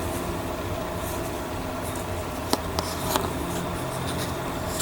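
Steady low background hum with a few light clicks and brief rustles about two and a half to three seconds in.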